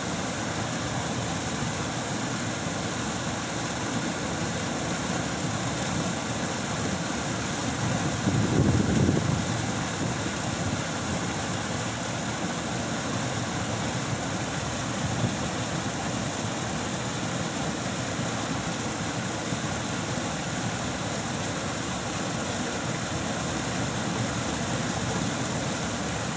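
Mountain stream water flowing steadily, with a louder low swell for a second or so about eight seconds in.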